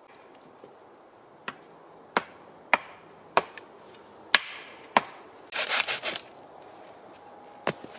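Sharp wooden knocks, six in about three and a half seconds, as a long cut pole is knocked against the other poles of a log lean-to roof while being fitted. Then a short burst of quick strokes from a folding pruning saw on a wooden pole, and one more knock near the end.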